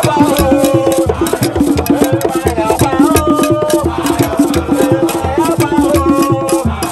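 A group of men singing a chant together over a fast, steady beat of struck wooden percussion and handclaps.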